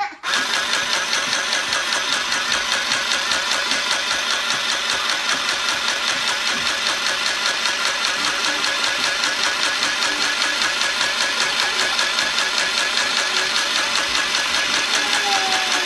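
Small portable electric sewing machine running steadily, its needle mechanism stitching in a fast, even rhythm.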